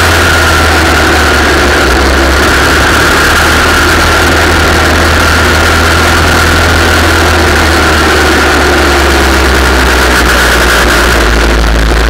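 Engine of a vehicle running steadily as it laps a shale oval track, heard loud and close through an onboard camera, with wind rushing over the microphone.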